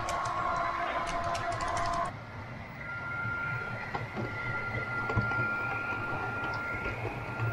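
HO-scale model trains running: a small electric motor whining, with quick clicking of wheels over the track for about the first two seconds. After an abrupt change about two seconds in, a steadier high whine with a low hum.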